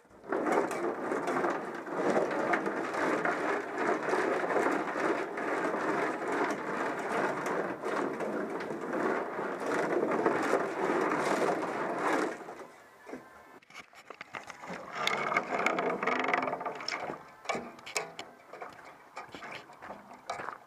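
Loose nuts and bolts rattling and clattering inside a steel snowmobile fuel tank as it is shaken to knock rust loose. The rattle is loud and continuous for about twelve seconds, then drops to quieter, broken clattering with a short louder spell a few seconds later.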